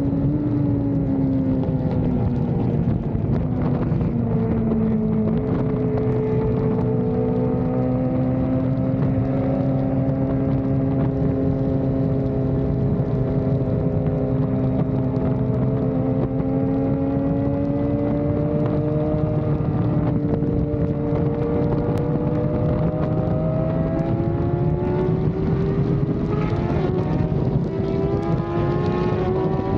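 Superbike engine running at steady cruising revs on a highway, its pitch dipping slightly and then jumping up about five seconds in, holding level, and climbing slowly near the end as it picks up speed.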